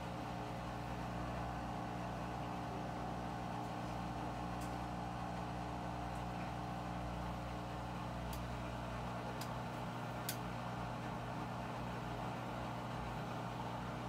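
Front-loading washing machine in its medium spin, its motor and drum giving a steady hum, with a few faint ticks about halfway through.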